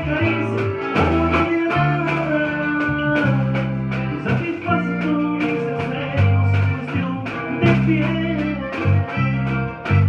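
Live band music with accordion and guitar over a walking bass line and a steady beat, played for dancing.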